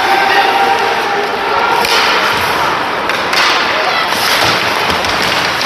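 The hubbub of a game in a large hall: spectators' voices murmuring with several sharp knocks and thuds from the play.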